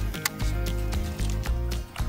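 Background music with a steady bass line and light, ticking percussion.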